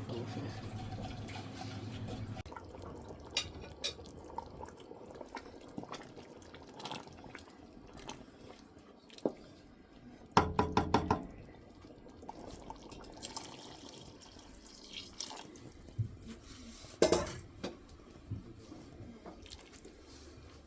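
Kitchen work sounds: liquid pouring and dripping, with scattered knocks and clinks of pots and utensils, including a quick run of about five knocks about halfway through. A steady low hum stops about two seconds in.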